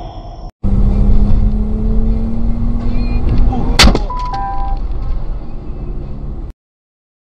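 Dashcam audio inside a moving car: heavy road and engine rumble with a long steady low tone, then one sharp loud bang about four seconds in, the impact of a collision, followed by two short electronic beeps. The sound cuts off suddenly near the end.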